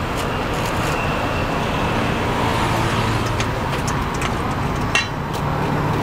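Steady roadside traffic noise from passing vehicles, with a few short light clicks heard over it near the middle and end.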